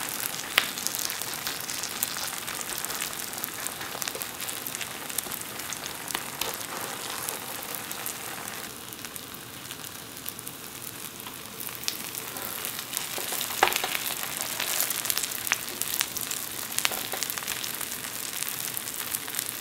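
Thin kale-and-chili pancake batter frying in oil in a pan, a steady sizzle and crackle. A few sharp clicks of a spatula against the pan stand out, the loudest a little past the middle.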